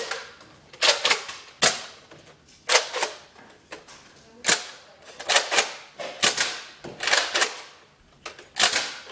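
Nerf foam-dart blasters being cocked and fired: a string of sharp plastic clacks at uneven intervals, several in quick pairs.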